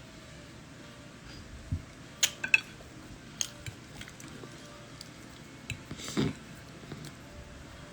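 Eating sounds at a breakfast plate: a few scattered sharp clicks of cutlery against a dish, with chewing and a louder crunch-like sound a little after six seconds in.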